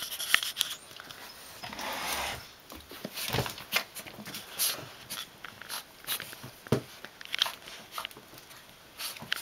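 Small dogs scrambling and scuffling in a tight gap between furniture: scratching, rustling and scattered knocks of paws and bodies against the panels, with no barking.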